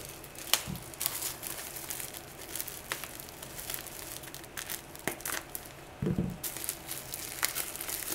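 Keyboard-switch packaging crinkling and rustling as it is handled and opened, with scattered light clicks and a dull thump about six seconds in.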